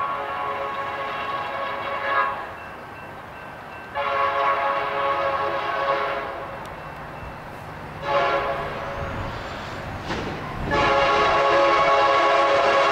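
BNSF SD70MAC diesel locomotive's air horn sounding the long, long, short, long grade-crossing signal, the warning for a road crossing ahead. The short blast comes about eight seconds in, and the last long blast is the loudest, over the low rumble of the approaching train.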